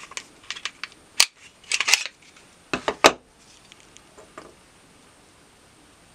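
Sharp metallic clicks and clacks of a Glock-pattern pistol's slide being worked and pulled off its polymer frame for takedown, ending in two loud clacks about three seconds in. A few soft clicks follow as the recoil spring assembly is lifted out, then it goes quiet.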